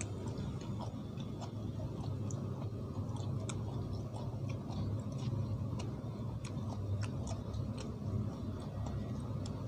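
A person chewing a mouthful of som tam close to the microphone: irregular wet mouth clicks and smacks, several a second, over a steady low hum.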